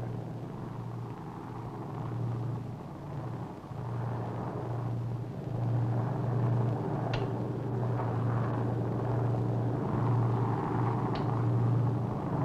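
Steady drone of a B-29 bomber's piston engines, a low even hum that grows louder about five seconds in.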